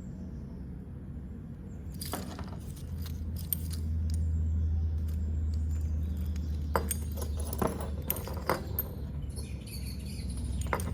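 Metal screwdriver bits and a carabiner bit holder clinking and clicking as they are handled, a few separate knocks with a cluster near the middle, over a steady low hum.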